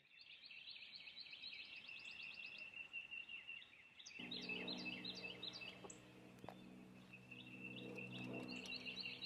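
Faint birdsong: quick repeated chirps and trills. About four seconds in, soft steady background music comes in under them.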